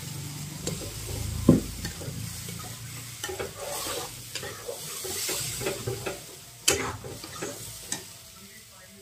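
Tomato, onion and garlic paste sizzling in hot oil in a metal kadai, with a metal spatula scraping and clicking against the pan as it is stirred. There are two louder knocks, about a second and a half in and again near seven seconds, and the sizzling eases off near the end.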